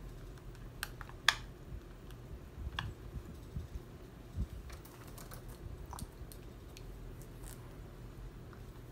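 Scattered light clicks and taps of hands handling and adjusting a plastic full-face CPAP mask and its headgear, with one sharper click about a second in, over a low steady hum.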